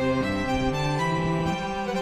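Background music of slow, sustained held notes with no drumbeat.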